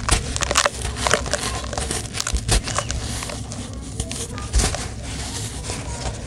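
Hands crushing and crumbling lumps of dry, dusty gray dirt: a dense run of gritty crunching and crackling, thickest in the first second and a half. Sharper cracks come about two and a half and four and a half seconds in, and there is the soft hiss of powder pouring through the fingers.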